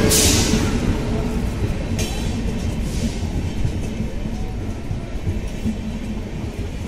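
Passenger train coaches rolling past a station platform: a steady rumble and rattle of wheels on the rails, with a couple of sharp clicks a few seconds in. It gradually gets quieter.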